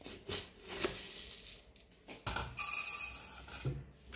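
Dry coriander seeds rattling and clicking against a small steel spoon and the plastic jar as they are scooped. A louder, hissing rush of seeds lasts about a second past halfway.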